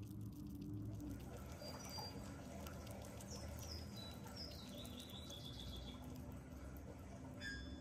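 Sugar glider chewing a small snack, with faint nibbling and crunching. Short high chirps come in about three seconds in, run on for a few seconds, and come again near the end.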